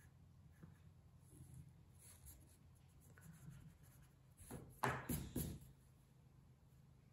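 Pencil faintly scratching on drawing paper, then a pink rubber eraser rubbed back and forth on the paper in about four quick strokes two-thirds of the way through, the loudest sound.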